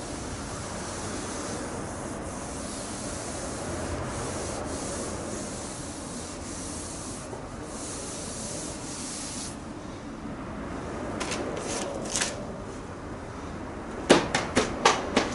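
Hand sanding of primer surfacer on a car body panel: a steady rubbing scrape of abrasive paper over the primed metal that stops about two-thirds of the way through. Near the end comes a quick run of sharp clicks or taps, the loudest sounds here.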